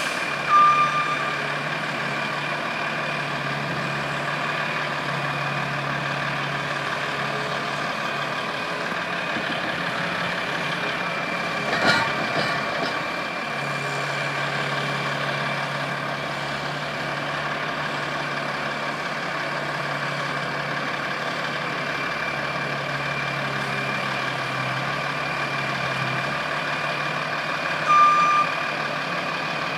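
Skid-steer loader and diesel truck engines running steadily while snow is loaded into the truck, with a constant high whine. A brief knock comes about twelve seconds in, and a short beep sounds twice, just after the start and near the end.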